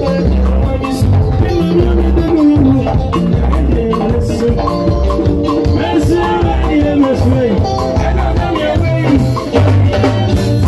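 Amplified live band music: a singer's melody over a deep bass line, a drum kit and hand drums keeping a steady dense beat.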